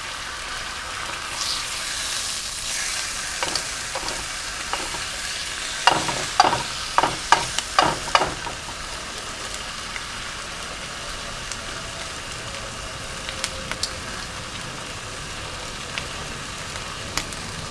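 Fried egg with a slice of ham on top sizzling in a frying pan, a steady hiss with scattered crackles and a run of louder pops about six to eight seconds in.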